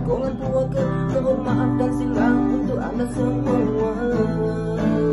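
Background music led by acoustic guitar, with sustained chords.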